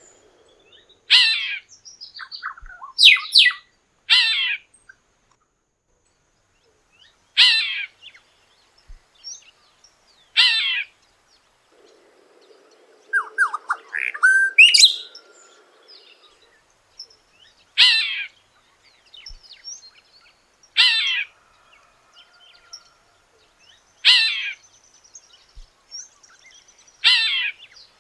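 Golden-winged cacique (tecelão) singing: short, loud, sweeping phrases repeated about every three seconds.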